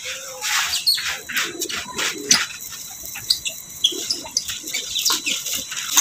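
A hand stirring damp corn kernels and coarse salt in a plastic basin, making a quick, irregular rustling and clicking of grains. A few short bird chirps come through.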